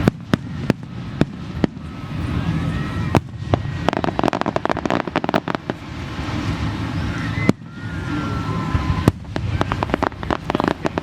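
Aerial fireworks bursting: repeated sharp bangs at irregular intervals, with a dense run of crackling about four seconds in.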